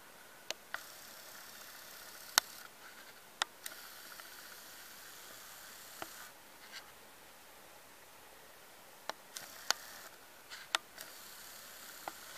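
Faint steady hiss with about a dozen short, sharp clicks scattered through it. The loudest click comes a little over two seconds in.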